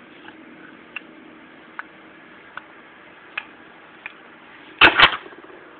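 Small toys being handled and tapped: light taps about every 0.8 seconds, then two loud knocks close together near the end.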